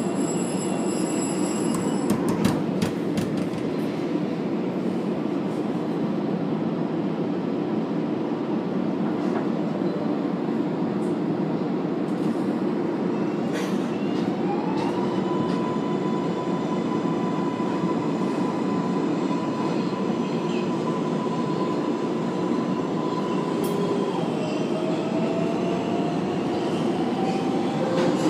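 An R188 subway train running through a tunnel station, heard from the front car as a steady low rumble, with sharp clicks from the wheels in the first few seconds. About halfway through, a whine glides up and holds at one pitch for about ten seconds, then gives way to a lower tone that slowly rises near the end.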